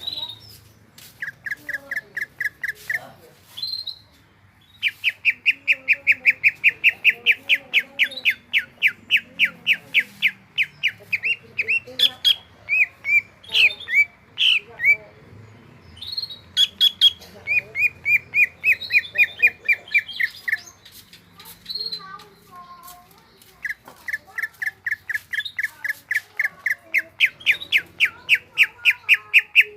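Cucak ijo (green leafbird) singing in long rapid trains of sharp repeated notes, about seven a second, in several bursts with short pauses between them and a few varied notes in the gaps.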